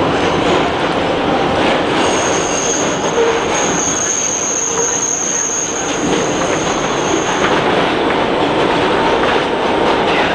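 Kawasaki R160B subway train running through a tunnel, a loud steady rumble of wheels on track heard from inside the car. From about two seconds in, a thin, high, steady squeal rides over it for about five seconds, then fades.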